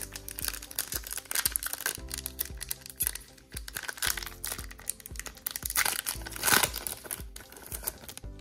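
Foil Pokémon booster pack wrapper crinkling as it is handled and torn open, loudest in a burst about six and a half seconds in, over background music.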